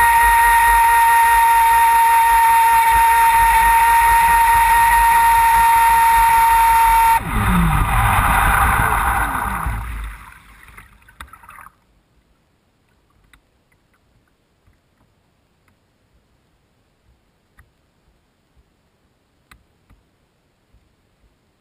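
ProBoat Voracity RC boat's brushless electric motor whining at a steady high pitch at full throttle over the rush of water, then throttling off about seven seconds in. The pitch falls away as the hull slows, and the water noise fades to near silence by about twelve seconds, leaving only faint ticks.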